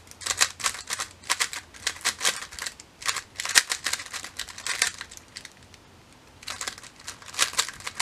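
Plastic layers of a GANS 356 X speed cube being turned fast by hand: quick runs of clicking and clacking, broken by a pause of about a second a little past the middle.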